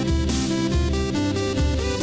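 Electronic background music with a steady bass beat, a little under two beats a second, under held synth notes.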